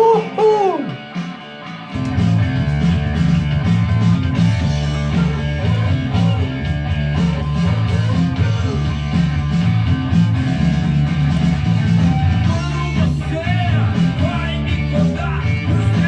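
Rock song: a lone guitar phrase, then the full band with heavy bass and drums comes in about two seconds in.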